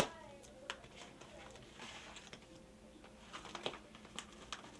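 Packaging being handled: one sharp click at the start, then scattered small clicks, taps and rustling.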